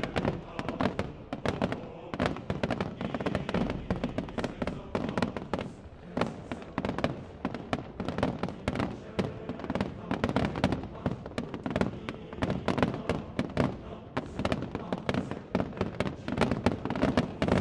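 Aerial fireworks in a dense, continuous barrage: many shell bursts a second, with bangs and crackling, and no pause.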